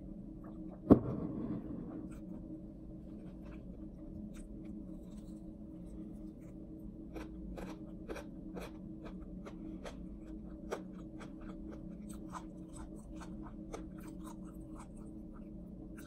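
A ceramic mug set down on the table with a single loud clunk about a second in, followed by chewing of crispy fried chicken: many small, irregular crunching clicks. A steady low hum runs underneath.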